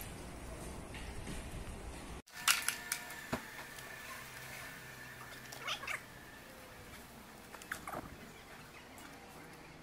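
Sharp metal clicks and clinks of hands and tools on a car engine's timing end as the camshaft gear is fitted, a few apart over several seconds. A thin steady high tone runs for about three seconds after the first click.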